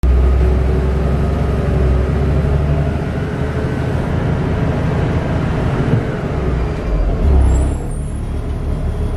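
Denning Phoenix low-floor bus driving, its engine rumble and road noise heard from inside the passenger cabin. There is a brief swell about seven seconds in, then faint high squeaking near the end.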